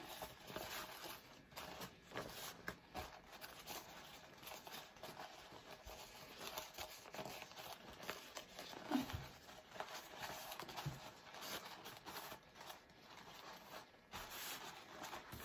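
Faint, irregular rustling and crinkling of blue sterilization wrap as it is folded and smoothed by hand over a bowl.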